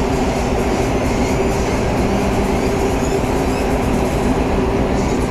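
Steady drone of a ship's engines, a few constant hum tones over an even rushing noise.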